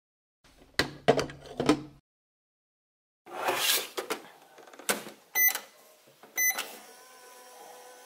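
Just Like Home toy microwave in use: knocks of a glass set down inside, the door clattering shut, then two short electronic button beeps about a second apart. Near the end the toy's steady electronic running tone starts, as its timer counts down.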